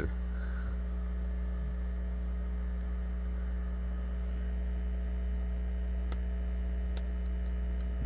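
Microwave-oven transformer driven by an audio amplifier, humming steadily with a low drone and a buzz above it, and a few faint ticks.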